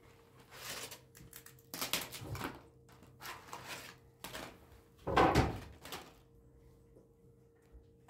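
Sheets of dried-out thin flatbread (yufka) crackling and rustling as they are handled and broken up, in several irregular bursts, the loudest a little past halfway. A faint steady hum runs underneath.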